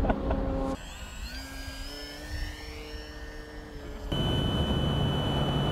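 Electric RC plane's motor and propeller whining in flight. The sound changes abruptly about a second in and again past the middle. In between, the quieter motor tone rises in pitch as the throttle goes up. Near the end a steady high whine sits over a low rumble.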